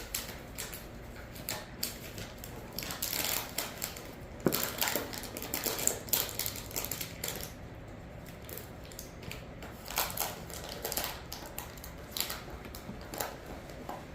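Irregular clicking, tapping and rattling of plastic oil bottles being handled and worked, with one sharp knock about four and a half seconds in.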